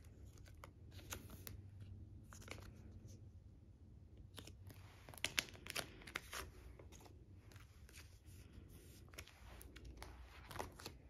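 Faint crinkling and scraping of a clear plastic binder sleeve as a photocard is slid into its pocket, with scattered light clicks and rustles; near the end a plastic binder page is lifted and turned.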